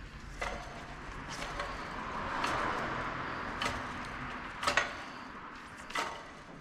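Hand tools and metal parts being handled during suspension work: sharp clicks and knocks about once a second, with a short rustling swell in the middle.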